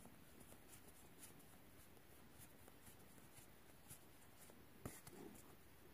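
Near silence with faint soft ticks and slides of Magic: The Gathering cards being flicked through by hand, one slightly louder tick about five seconds in.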